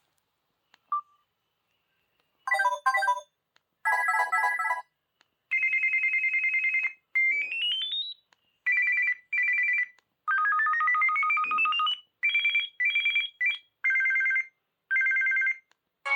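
Samsung cell phone ringtones playing from the phone's small speaker: short electronic phrases separated by brief gaps, made of bright synth chords, steady two-note tones, two rising pitch glides, and repeated beeps.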